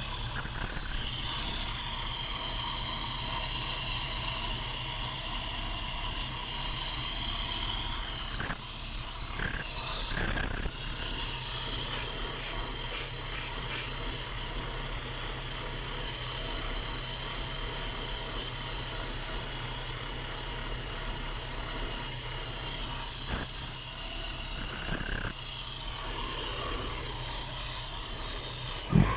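Freshly rebuilt Opel petrol engine idling steadily, a low drone with a steady high whine and hiss over it.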